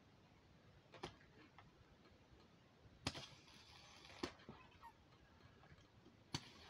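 Gas airsoft pistol being charged from a gas can through the fill valve: a click about a second in, then a click and about a second of hissing gas around three seconds in, and another click and hiss near the end as the gas blows out past the valve, the sign that the pistol is full.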